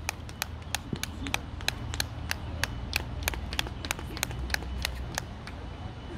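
Hand claps in an even rhythm, about three a second, which stop about five seconds in, over a steady low hum.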